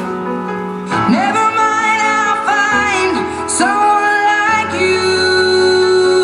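Recorded pop music with a singer's voice over instrumental backing; the accompaniment changes and a new sung phrase with gliding notes begins about a second in.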